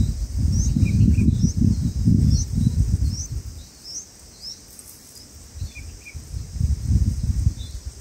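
High, thin rising chirps, about two a second, from bulbul nestlings begging at the nest. They thin out after about five seconds. Under them is a steady high insect buzz, and loud, gusty low rumbling from wind on the microphone covers the first half and comes back briefly near the end.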